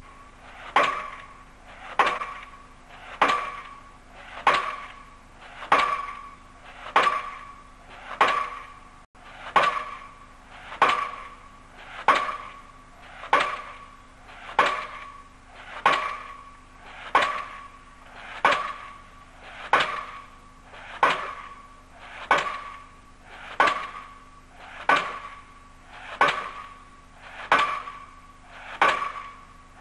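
Diesel pile hammer driving a pile: heavy blows at an even pace a little over a second apart, each ringing briefly.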